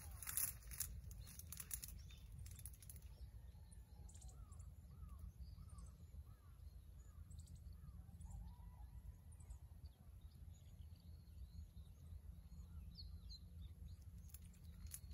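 Faint open-field ambience: a steady low wind rumble with a few faint bird chirps, including a quick run of about six short chirps around three seconds in. A few rustles or clicks in the first two seconds; the tanuki is no longer calling.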